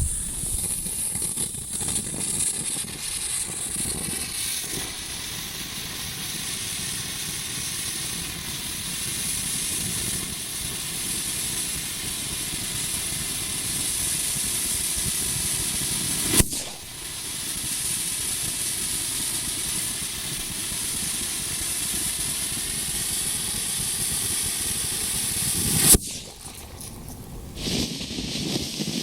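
Firework volcano fountains spraying sparks with a steady, loud hissing rush. There is a sharp crack about 16 seconds in and another near the end, after which the rush drops away.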